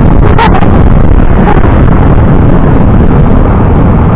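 Wind buffeting the microphone while riding a motorcycle at road speed: a constant, loud, overloaded rumble mixed with engine and road noise.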